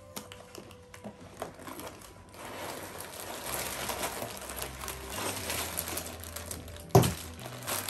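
Plastic bags of Lego pieces crinkling and rustling as they are tipped out of the box and handled, with one loud thump about seven seconds in.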